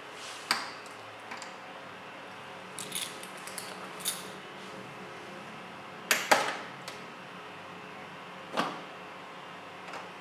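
Metal clicks from a Huawei server's lid latch: a key turning in its small lock, then a loud double clack about six seconds in as the latch is pressed, and another click as its handle swings up. A steady low hum runs underneath.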